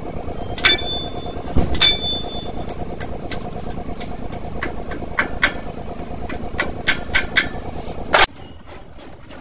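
A metal scraper clicks and taps against a steel truck lift-axle wheel hub while grease is spread and packed around it, with two ringing metallic clinks about a second apart near the start. A steady mechanical hum runs underneath and cuts off abruptly near the end.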